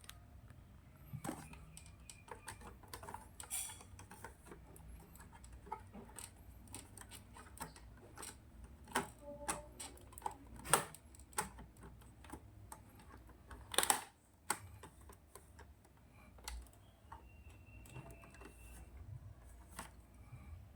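Scattered, irregular clicks and light taps, with a sharper click about eleven seconds in and a cluster of louder ones around fourteen seconds in.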